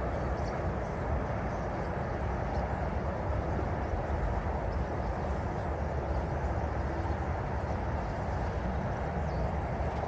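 Steady low rumble of distant road traffic, with a few faint, high bird calls over it.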